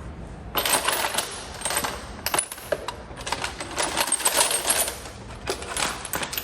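Loose small metal tools and hardware clinking and rattling as they are rummaged through and sorted by hand, with many quick overlapping clicks.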